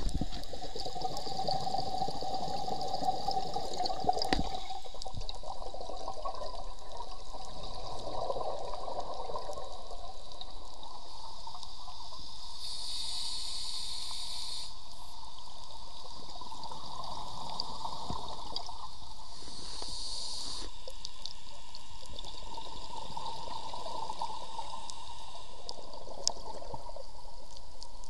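A scuba diver breathing through a regulator underwater: a bubbling rush that swells and fades, and high hissing surges a few times, several seconds apart.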